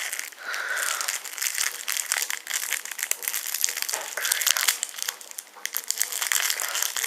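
Foil wrapper of a Yu-Gi-Oh trading-card promo pack crinkling and crackling as it is handled and opened.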